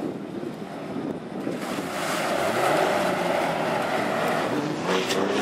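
Off-road 4x4 engine revving as it comes nearer, its pitch rising about two seconds in, over wind noise on the microphone.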